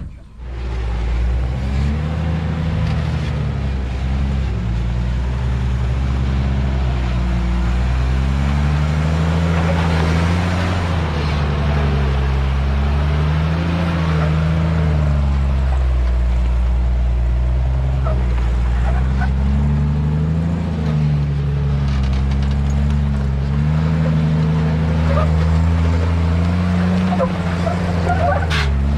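Toyota FJ40 Land Cruiser's original F-series inline-six engine running loud and steady, its pitch rising and falling every few seconds as the throttle is worked off road. A short sharp knock comes near the end.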